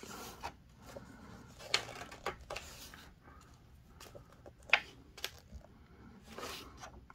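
Pages of a large hardcover book being turned by hand: paper rustling and flapping in a run of short page flips, with a few sharp snaps, the loudest about three-quarters of the way through.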